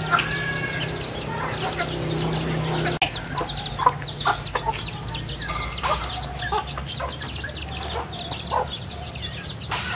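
A flock of free-range chickens and roosters clucking, with many short chirps, as they feed on scattered grain.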